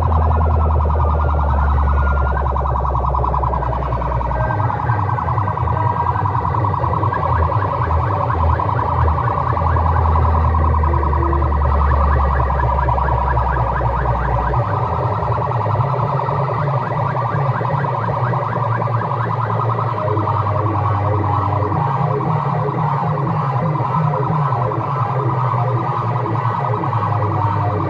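Loud competition music through a large DJ speaker-box sound system, with siren-like electronic effects over a fast, dense beat. The deep bass is heavy for the first half and drops away about halfway through.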